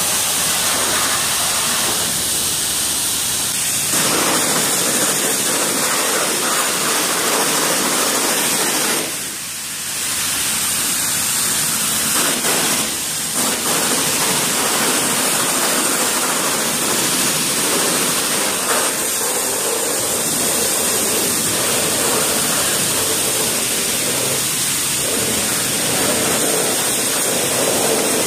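Pressure washer jet spraying mud off a 1/5-scale gas RC buggy and onto a concrete floor: a steady hissing rush of water. It lets up briefly about nine seconds in and breaks again for a moment around thirteen seconds.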